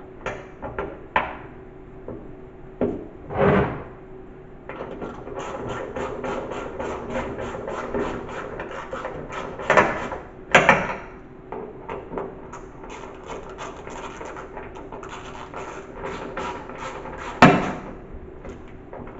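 Hands and tools working on a fiberglass trunk lid and its hinges: scattered knocks and clunks, with long runs of quick, even clicks, over a steady low hum.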